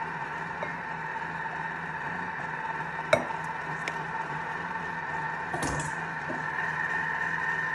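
Thermomix running steadily with a hum while it sautés onions, with a sharp click about three seconds in, a lighter one a second later and a short clatter past the middle from kitchen items being handled.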